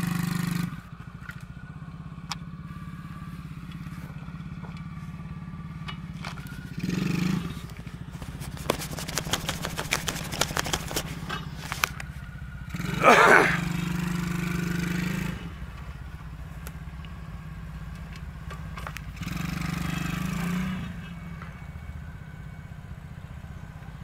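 A 125cc ATV engine running, loud at first and then dropping to a low run after about a second. It rises briefly with throttle about 7 seconds in, most loudly around 13 to 15 seconds with a climbing whine, and again around 19 to 21 seconds. A patch of clicks and rattles comes between about 8 and 12 seconds.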